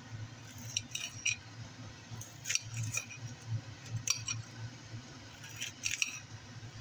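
Knife slicing through a head of cabbage on a plate, with short sharp clicks in small clusters every second or two as the blade strikes the plate. A kitchen range hood hums steadily underneath.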